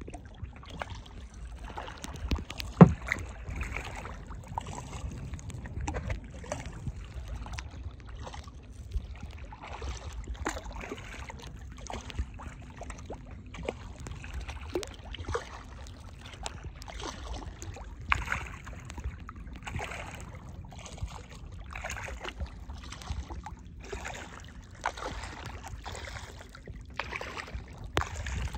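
Kayak paddle strokes splashing and dripping in calm water, one every second or two, with a single sharp knock about three seconds in and a low rumble underneath.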